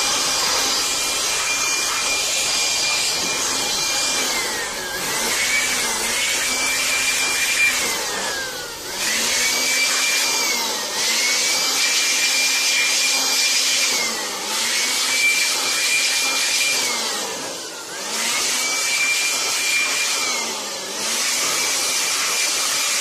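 Handheld electric blower running with a high motor whine and a rush of air, blowing dust out of a rig of graphics cards. About five times the motor slows with a falling whine and then spins back up to full speed.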